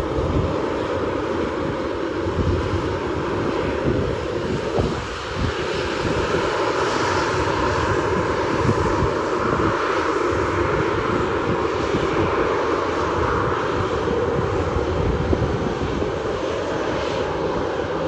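Boeing 737's CFM56 turbofan engines running steadily as the airliner rolls along the runway, a continuous jet roar with no spool-up. Gusty wind rumbles on the microphone underneath.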